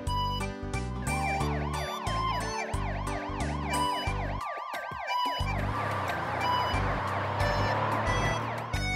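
Cartoon ambulance siren sound effect: a fast rising-and-falling yelp, about four sweeps a second, over children's background music with a steady bass line. About five seconds in the siren stops and a rushing noise follows as the ambulance drives off.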